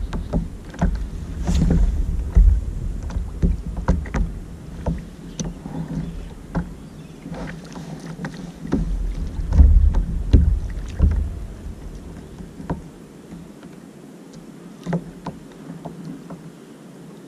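Water lapping against a plastic sit-on-top kayak's hull, with many scattered light knocks and clicks. Wind rumbles in the microphone in uneven gusts for the first twelve seconds or so, then eases.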